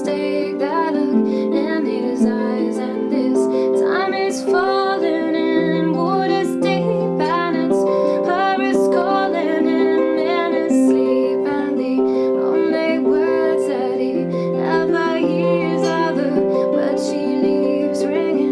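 Acoustic music led by a plucked string instrument, with sustained notes underneath and regular plucked attacks.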